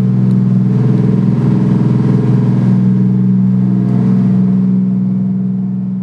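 Motor yacht's engines droning steadily underway, with a rushing hiss over the low hum. The sound begins to fade near the end.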